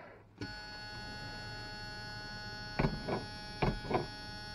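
Steady electrical hum with a cluster of fixed whining tones that switches on about half a second in as the truck's ignition is turned to on, with four short knocks near the end.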